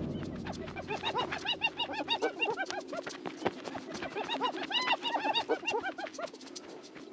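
Hyenas giggling as they squabble over bones: long, rapid runs of short rising-and-falling calls, with sharp clicks scattered throughout.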